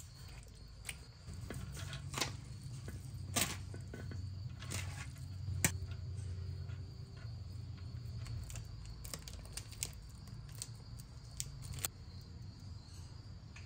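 Metal spoon scraping and clinking against a steel cooking pot while rice and curry are layered in, as a dozen or so short, sharp clicks over a steady low hum.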